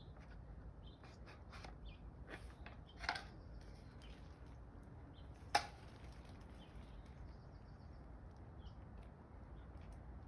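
Light clicks and taps of hard plastic parts being handled and twisted, with two sharper clicks about three and five and a half seconds in: a pressure washer spray wand being worked into its trigger gun.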